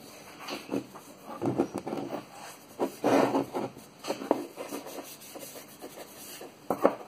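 Disposable-gloved hands rubbing linseed oil into a bare, freshly sanded wooden backsaw handle and turning it on the workbench: irregular rubbing and scraping strokes, loudest about three seconds in, with a brief sharper knock near the end.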